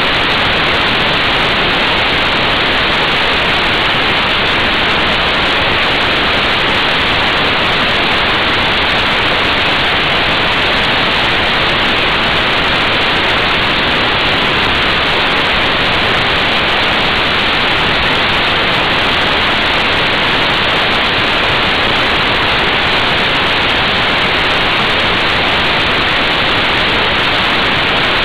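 Steady, loud wind rush over the microphone of an action camera riding on a Honda Fireblade motorcycle at motorway speed.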